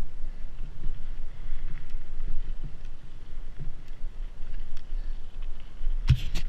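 Mountain bike rolling over a dirt trail: a steady low rumble of tyres and wind on the microphone, with small rattles and clicks. About six seconds in, loud knocks as a hand handles the camera.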